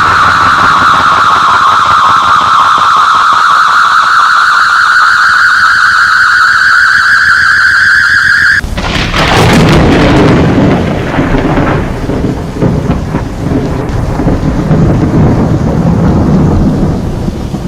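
Two sound effects in a row: a loud, wavering alarm tone held on one note that slowly rises in pitch, then, abruptly cut in about halfway, a sharp crack followed by a long low rumble like thunder.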